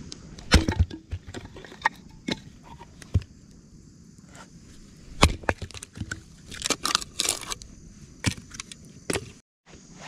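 Hatchet splitting ash firewood into kindling: a series of sharp, irregular chops with the wood cracking and splitting apart.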